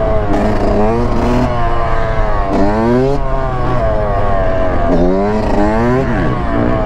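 Two-stroke Yamaha YZ125 dirt bike engine revving up in rising sweeps about four times and dropping back between, the throttle worked to hold the bike up on its back wheel in a wheelie.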